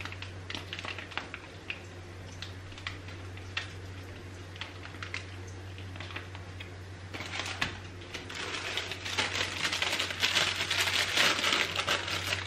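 Plastic wrapping and a thin aluminium foil food tray being handled and unwrapped: scattered light clicks and rustles at first, then denser crinkling from about seven seconds in.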